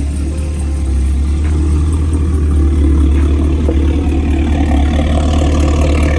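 Chevrolet Camaro SS V8 idling with a burbling exhaust note, running a little rocky, which the owner puts down to a throttle body that needs more cleaning.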